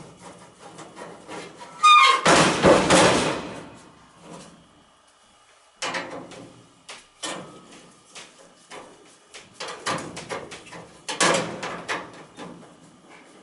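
Metal parts and tools being handled on a furnace: a short squeak, then a loud scraping clatter about two seconds in. Scattered knocks and bangs follow, with another burst of clattering near the end.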